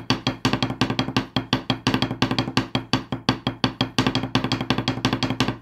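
Wooden drumsticks tapping out a fast, even run of strokes, about eight hits a second, that stops abruptly at the end.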